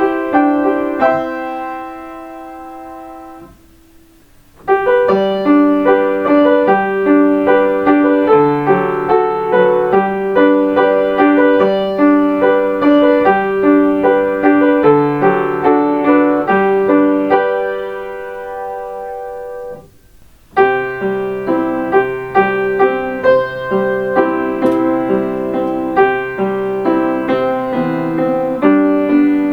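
Piano playing the short onboard chime melodies of Kintetsu limited express trains, one after another. A phrase dies away at the start, a new melody begins about five seconds in, and after a brief pause a little past the middle another melody starts.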